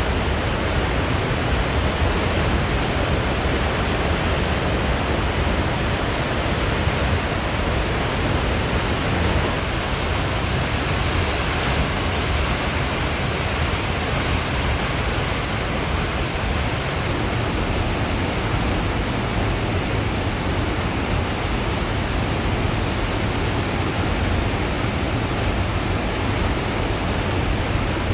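Koosah Falls on the McKenzie River, a 70-foot waterfall, as a steady loud rush of falling water.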